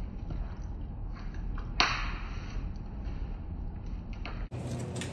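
A single sharp pop about two seconds in, trailing off in a short hiss, over a steady low hum.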